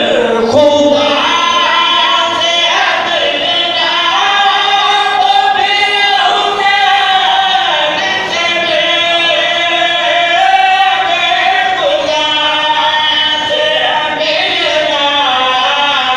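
Several men's voices singing a Shia devotional qasida together into a microphone, unaccompanied, in long held notes that bend and glide in pitch.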